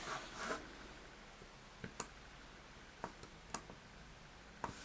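A handful of faint, short clicks and taps as a trimmed wooden cocktail stick is handled and tried in a small hole drilled into a PS3 controller's plastic analog stick post.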